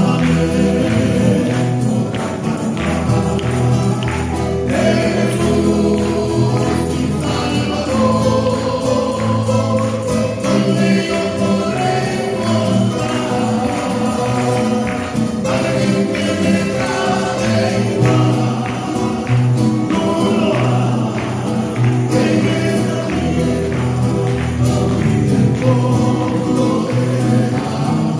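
A vocal trio singing a Spanish-language gospel-style Christian song in harmony over a steady band accompaniment with bass and rhythmic percussion.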